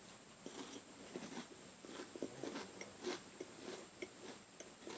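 A person biting and chewing a cracker: faint, irregular crunching.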